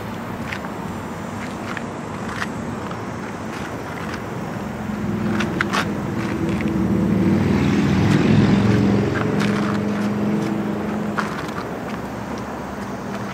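Outdoor background noise with a passing motor vehicle whose low hum swells to a peak about two-thirds of the way through and then fades away. Scattered light clicks.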